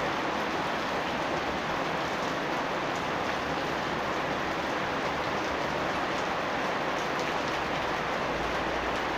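Steady heavy rain falling on the yard, a dense even hiss of drops with small drop ticks. A low rumble comes in near the end.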